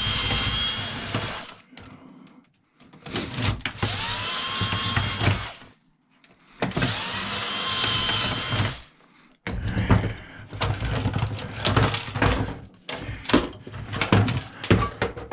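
Power drill running in three bursts of about two seconds each, each opening with a rising whine, while taking apart a cash register. After that comes a fast clatter of knocks and rattles as loose parts are handled.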